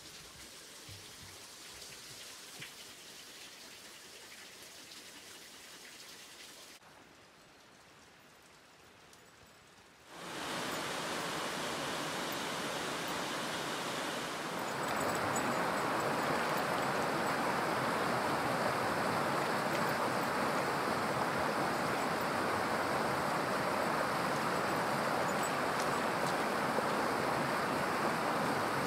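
Water of a rocky forest creek rushing over stones, a steady even rush that cuts in about a third of the way through and grows louder again about halfway. Before it there is only a faint steady hiss.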